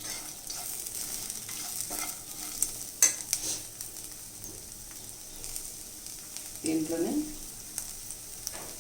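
Cluster beans and coconut powder sizzling in a pan as they are stirred, the stirring utensil scraping and tapping the pan, with one sharp clink about three seconds in.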